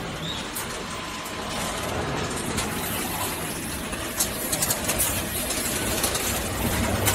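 Potato chip production line machinery running: a steady mix of motor hum and machine noise, with scattered light clicks in the second half.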